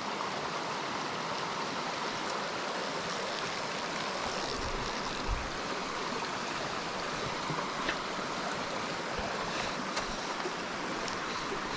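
Small rocky mountain stream, its water running steadily over stones and riffles, heard close.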